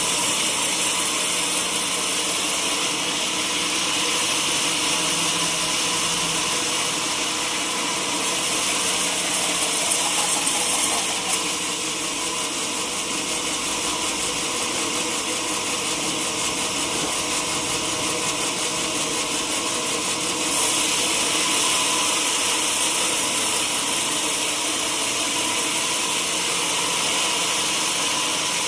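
Sawmill saw running steadily while sawing durian wood, a loud continuous machine noise that drops a little about 11 seconds in and rises again about 20 seconds in.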